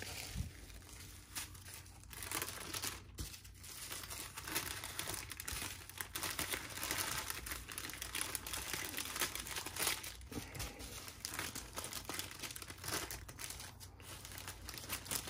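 Small zip-top plastic bags of diamond painting drills crinkling and rustling as they are handled and picked up one after another, with irregular crackles throughout.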